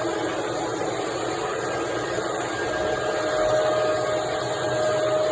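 Shark Navigator Lift-Away vacuum cleaner running steadily, with a steady whine coming in more strongly a little under three seconds in.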